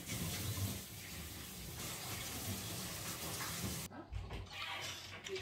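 Steady hiss of running water that stops abruptly about four seconds in, followed by a few faint low knocks.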